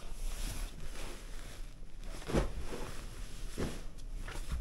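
Cloth rustling and a few soft thumps as futon bedding and pillows are handled and set down on a tatami floor, over a steady low hum.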